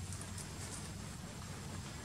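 Outdoor background ambience: a steady low rumble, with a few faint soft ticks or rustles in the first second.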